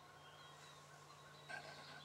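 Quiet field ambience with faint high bird chirps, broken about one and a half seconds in by one short call from a young male wild turkey (jake).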